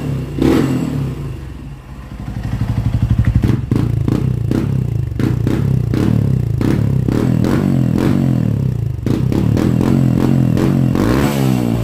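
Honda CRF150L's single-cylinder four-stroke engine being revved through its exhaust: one rise from a low, pulsing idle, then a run of quick throttle blips, then held at higher revs.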